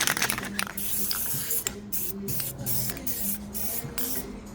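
Conductive paint being applied to a 3D-printed plastic sculpture: many short swishing, scraping strokes in quick succession, over soft background music.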